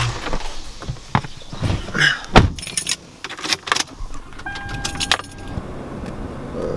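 Someone getting into a car: knocks and rustling with keys jangling, a loud thump a little over two seconds in like the car door shutting, then a short steady electronic chime from the car about four and a half seconds in.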